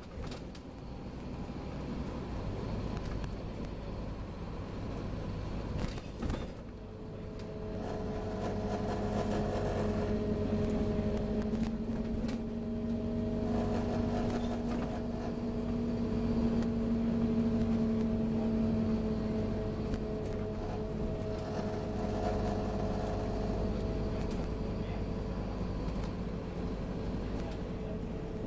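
Scania OmniCity N230UD double-decker bus heard from inside on the move: its five-cylinder diesel and the road give a steady low rumble, and about seven seconds in a steady whine of several tones joins it and holds as the bus runs along.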